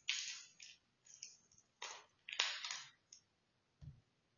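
Plastic shrink-wrap on a card deck box crinkling in short scratchy bursts as fingers pick at it to start a tear. There is a soft low knock near the end.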